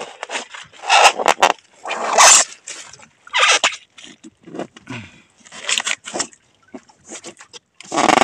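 Wet fish being shifted and handled in a packed cooler: a handful of short, noisy slaps and squelches, the loudest near the start and near the end.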